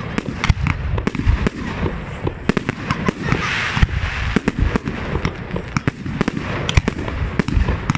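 Fireworks firing shot after shot from a ground launch point, with quick sharp reports of launches and small shells bursting, and a short hiss about three and a half seconds in.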